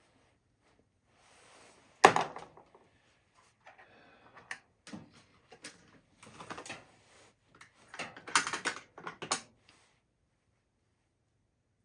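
Small tools and parts being handled on a hard workbench: one sharp knock about two seconds in, then scattered clicks, taps and brief scraping.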